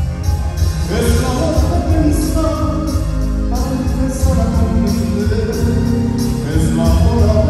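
Male singer performing a ballad live into a microphone, backed by a symphony orchestra with strings and a heavy amplified bass; a rising glide into a held note comes about a second in.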